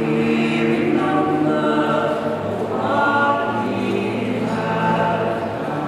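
Vocal quartet of two men and two women singing a cappella in harmony, holding long notes and moving from chord to chord.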